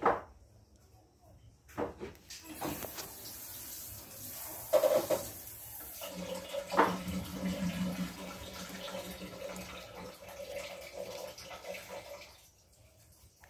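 Water running steadily, as from a tap, from about two seconds in until shortly before the end, with a steady low hum in it and a few sharp knocks.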